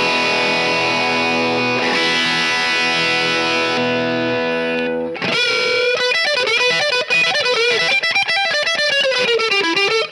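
Epiphone Flying V electric guitar through a Marshall SC20H amp on a crunch setting: an overdriven chord rings out for about five seconds, then a fast single-note lick with string bends and vibrato, ending on a held, wavering note.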